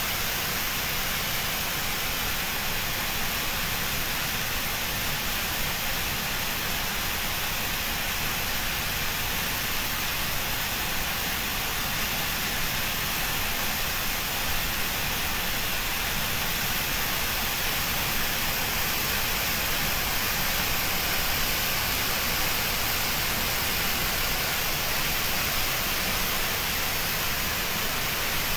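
Dam sluice valve discharging a high-pressure jet of water that crashes into the flooded river below, a steady, unbroken rush of water.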